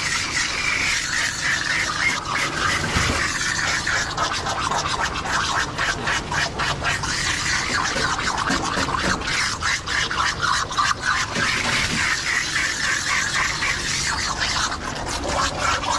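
Hands scrubbing shampoo into a Shetland sheepdog's soaked, thick coat: a fast, continuous wet rubbing made of many quick irregular strokes.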